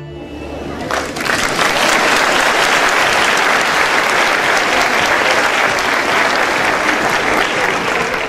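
The last low note of the music dies away, then an audience bursts into applause about a second in: dense, steady, loud clapping.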